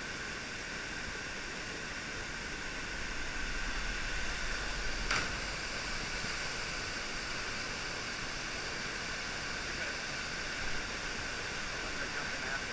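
Waterfall rushing steadily into a plunge pool below, an even hiss of falling water. A single sharp click about five seconds in.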